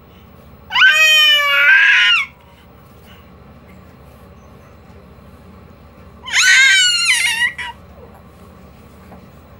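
Two high-pitched shrieks in a young child's voice, each about a second and a half long, the first about a second in and the second about six seconds in.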